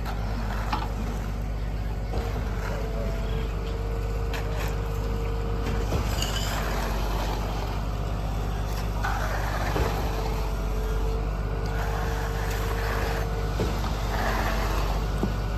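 Heavy diesel engine of concrete-pouring equipment running steadily at a constant speed, a low drone with a held hum over it.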